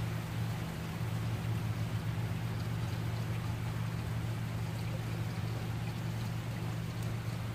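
Heavy rain falling steadily, with a steady low hum running underneath it.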